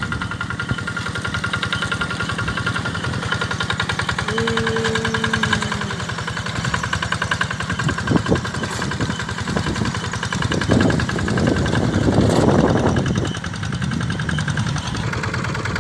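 Engine running steadily with a fast, even knock. A short steady tone sounds for about a second and a half some four seconds in, and the engine grows louder and rougher for a couple of seconds past the middle.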